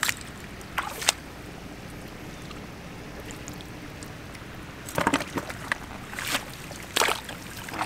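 Hands splashing and slapping in shallow muddy water while grabbing fish: a couple of sharp splashes about a second in, a quiet stretch, then a cluster of splashes from about five to seven seconds in.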